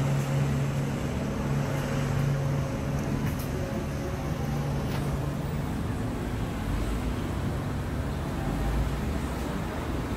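Street traffic. A vehicle engine idles with a steady low hum for about the first half, then general road rumble takes over, with a car passing close near the end.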